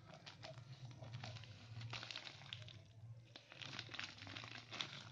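Sharp scissors cutting into a plastic courier mailer bag: faint, irregular snips and crinkling of the plastic as it is cut and handled.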